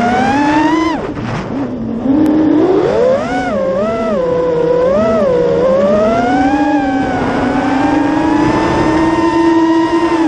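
Armattan Marmotte FPV quadcopter's brushless motors and propellers whining, the pitch rising and falling with the throttle: a dip about a second in, a climb at two seconds, three quick wobbles, then a long steady high whine that drops away at the end.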